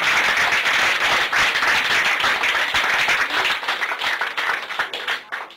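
A small group applauding, many hands clapping together; the clapping thins out and dies away near the end.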